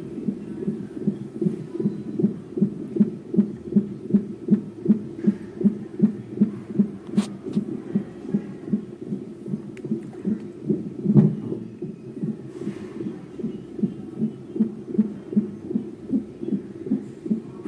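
Handheld fetal Doppler's loudspeaker giving out a fetal heartbeat as a fast, even whooshing pulse, a little over two beats a second: 140 beats a minute, within the normal fetal range. One louder thump about eleven seconds in.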